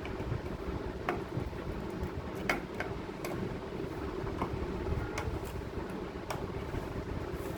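Steady mechanical hum, like a fan running, with scattered sharp clicks and taps.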